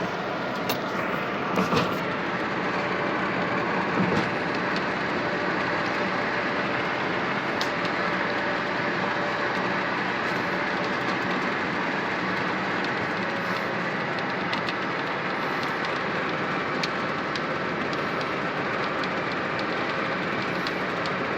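Loaded truck driving, with steady engine and road noise and a few short knocks and rattles about two and four seconds in.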